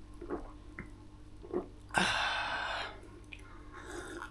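Someone drinking from a water bottle: a few soft clicks, then a short noisy sip lasting about a second, two seconds in.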